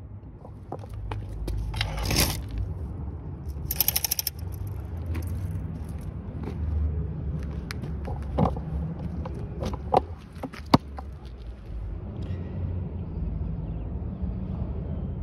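Vintage McCulloch MAC 10-10 chainsaw's two-stroke engine idling, with scattered clicks and two short scraping noises about two and four seconds in.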